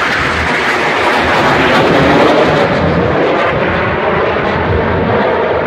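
A formation of military display aircraft flying low overhead: a loud, continuous rushing engine roar that drops in pitch as the formation passes.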